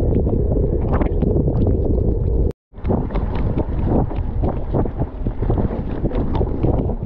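Mountain bike being ridden over wet, muddy ground: wind buffeting the action camera's microphone, with tyre noise and a stream of rattling clicks from the bike. The sound cuts out for a split second about two and a half seconds in.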